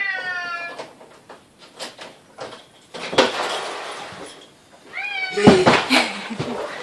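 Long-haired domestic cat meowing loudly at the door as its owner arrives, one falling meow at the start and another about five seconds in. A burst of noise about three seconds in comes with the door opening.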